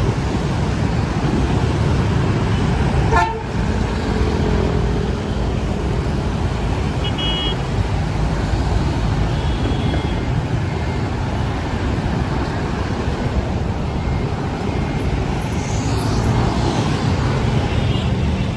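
Steady road traffic of cars, trucks and motorbikes passing on a multi-lane city boulevard, with a quick series of horn beeps about seven seconds in and a fainter beep near ten seconds. A sharp knock about three seconds in.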